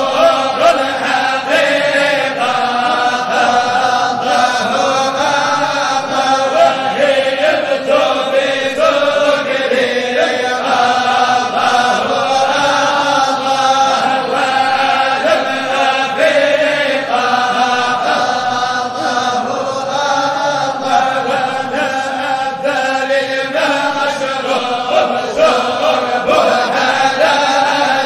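Voices chanting a Sufi qasida in Arabic, a continuous melodic line that rises and falls.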